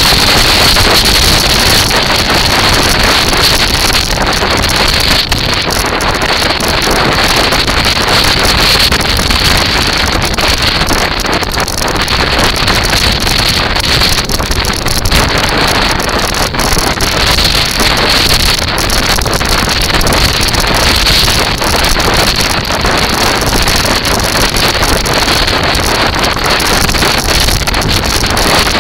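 Loud, steady wind buffeting the microphone of a camera mounted on a kite buggy rolling along a beach.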